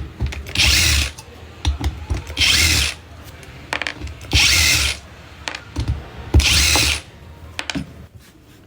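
Power screwdriver running in four short bursts about two seconds apart, backing out the four screws of an alternator's front bearing retainer plate, with light clicks between the bursts.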